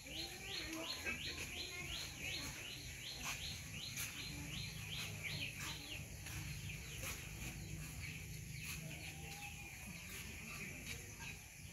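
A bird calling in a rapid series of short, high chirps, about three a second, that stops about six seconds in, with a few sharp clicks and a faint low hum.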